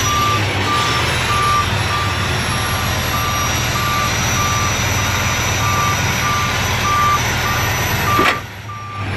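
Semi-truck's reverse alarm beeping evenly, about one and a half beeps a second, over the truck's engine idling. About 8 seconds in there is a sharp knock, after which the engine noise drops and the beeping continues.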